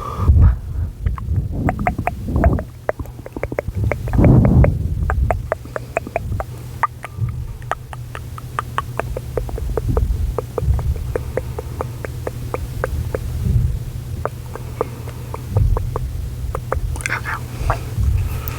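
Close-miked clicking: a long run of small, sharp clicks, several a second, over a steady low hum and bouts of low rumbling.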